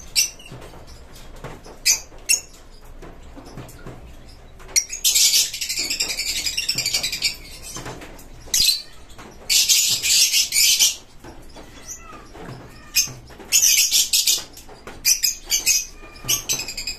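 Lovebirds calling: three loud, shrill, rasping bursts of a second or two each, with short sharp chirps in between and a quicker run of chirps near the end.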